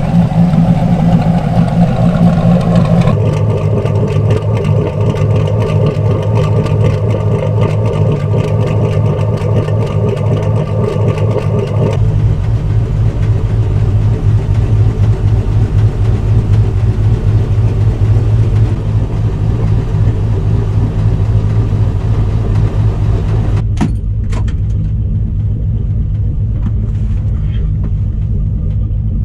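Turbocharged 5.3-litre LS V8 in a 1968 Pontiac GTO idling steadily, with no revving. The sound changes abruptly several times and is muffled in the last few seconds, as heard from inside the car's cabin, with a few sharp clicks about 24 seconds in.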